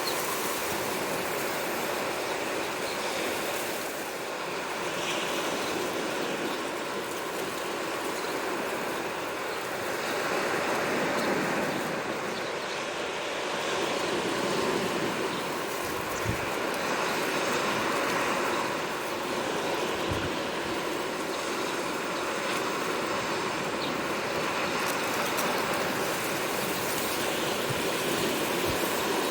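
Sea waves washing onto the shore: a steady rush of surf that swells and eases every few seconds.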